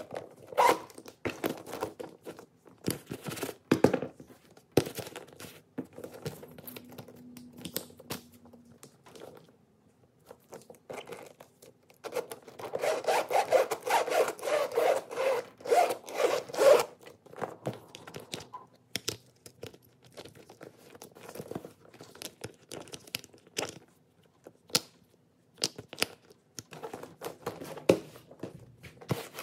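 A Coach Millie satchel of leather and signature canvas being handled: leather and canvas rubbing against hands, with scattered sharp clicks from its metal hardware. About halfway through comes a few seconds of rapid, repeated rubbing strokes.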